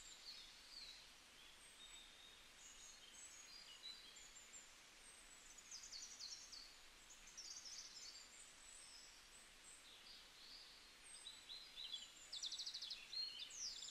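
Faint birdsong: many short chirps and whistled notes from several birds over a steady hiss, with a quick rapid trill near the end.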